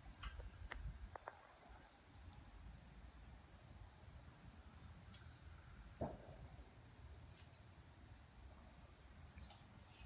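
Steady high-pitched chorus of crickets. A few faint clicks sound in the first second or so, and one short faint sound about six seconds in.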